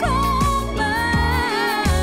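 Background song: a singer holding long, wavering notes over a bass and drum accompaniment.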